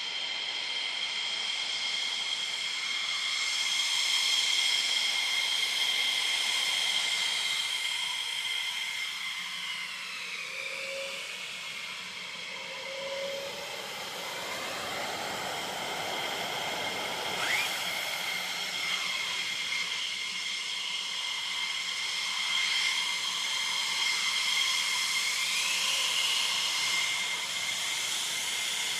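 F-15E Strike Eagles taxiing, their twin Pratt & Whitney F100 turbofan engines giving a high, steady whine over a hiss. The whine's pitch slides up and down as the jets move past, and a short rising whistle comes about two-thirds of the way in.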